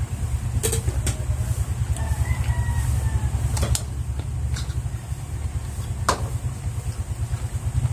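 Steady low hum with a few sharp clicks of a fork on a plate. A faint rooster crow comes a couple of seconds in.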